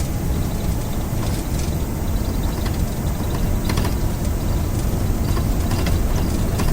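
Boeing 737-800 accelerating down the runway on its takeoff roll, heard from the cockpit: a steady loud rumble of the CFM56-7B engines at takeoff thrust and the aircraft rolling, with a few light clicks and rattles.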